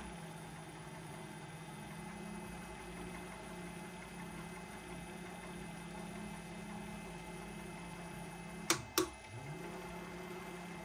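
Three-phase motor of a VFD-driven mini lathe running steadily at low speed with a quiet hum. About nine seconds in, the control-box toggle switch gives two sharp clicks, and the motor's tone drops briefly and comes back.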